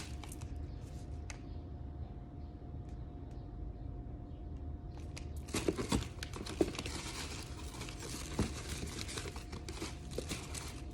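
Packaging of dried herbs being handled and closed up. A few light clicks come first, then from about five seconds in a steady run of crinkling with a couple of sharper knocks. A faint steady hum runs underneath.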